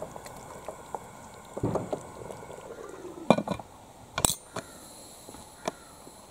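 Aluminium pressure cooker being closed: a few metal clanks and clicks as the lid is set on and twisted to lock, the sharpest and ringing about four seconds in.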